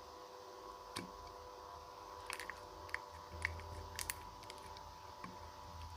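Homemade slime being stretched and pressed by hand, giving a scatter of faint irregular clicks and pops. The slime is stiff from too much activator, so it pops instead of making bubbles.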